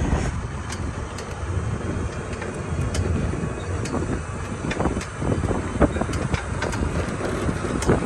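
Wind buffeting the microphone on a moving open-sided safari vehicle, over the vehicle's steady low running rumble, with scattered light rattles.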